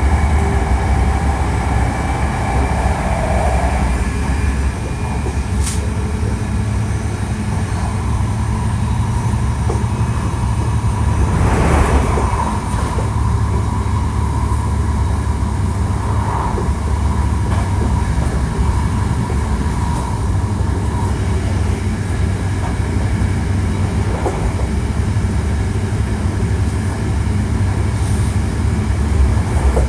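Hankyu 1300 series electric train with a Toyo IGBT VVVF inverter, heard from inside the car as it runs, a unit noted for its unusual running noise: a steady rumble of wheels on rail with faint steady motor tones. A falling tone fades out about three seconds in, and a brief louder rush of noise comes about twelve seconds in.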